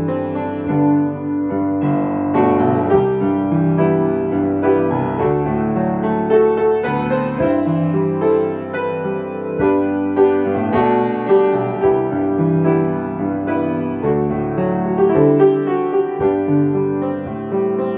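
Yamaha grand piano played solo: a piece of sustained chords under a melody line, with new notes struck every second or so.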